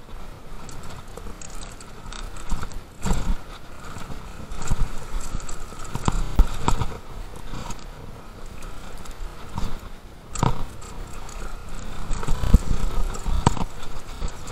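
Downhill mountain bike being ridden over rough trail: irregular rattling and sharp knocks as the wheels, suspension and chain take rocks and roots, with wind and tyre noise beneath, several heavy hits at uneven intervals.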